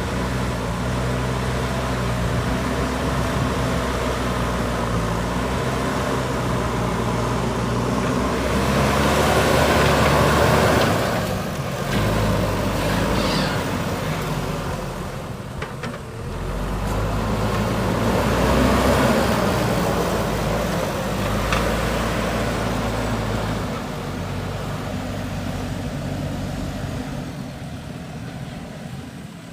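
JCB 3DX backhoe loader's diesel engine working. Twice it rises in revs and gets louder as the machine takes load, and dips briefly in between. There are a couple of short knocks, and the engine drops back near the end.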